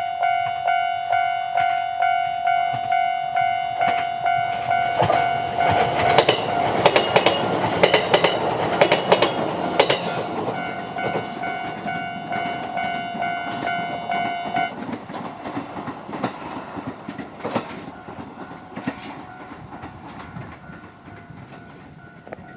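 Japanese level-crossing alarm bell dinging in a steady repeating rhythm while a JR East E129-series electric multiple unit passes, its wheels clicking over the rail joints loudest about six to ten seconds in. The main bell tone stops about fifteen seconds in, and a fainter ringing and the train's noise fade away.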